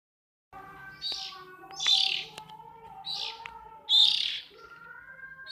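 Bird giving harsh, raspy calls, four of them about a second apart, the loudest around two and four seconds in, over a faint steady tone.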